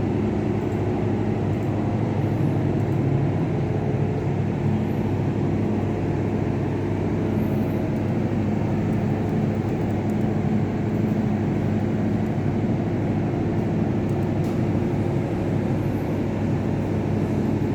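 Mitsubishi diesel engine running steadily at a constant speed, a loud, even drone with a low hum, after its P2 maintenance.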